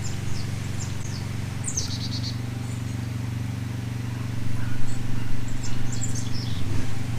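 Birds chirping in short high calls, with a quick trill about two seconds in, over a steady low hum.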